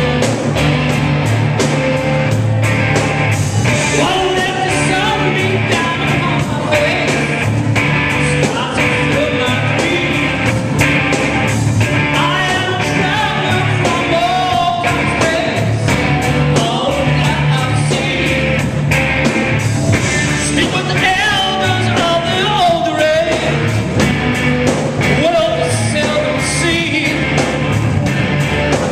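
Live rock band playing: a male lead singer over electric guitar, electric bass and a drum kit, with a steady driving beat.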